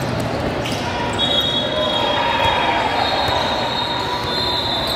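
Basketball game sound in a gym: a steady din of players and crowd with a ball bouncing. From about a second in come drawn-out high squeaks, typical of sneakers on the court.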